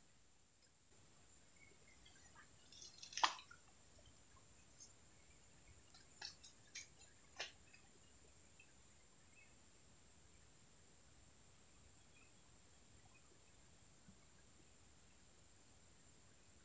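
Steady high-pitched insect chirring, unbroken throughout, with a few faint short clicks about three seconds in and again around six to seven seconds.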